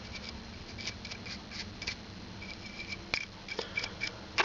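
Stiff synthetic brush scrubbing the metal under a Zippo lighter's windscreen: irregular short scratching strokes of bristles on metal, a few a second, with a louder click just before the end.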